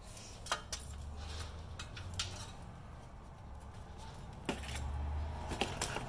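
Light metallic clinks and knocks, a handful spread apart, as a removed front wheel hub assembly and its metal parts are handled and set down, over a low rumble.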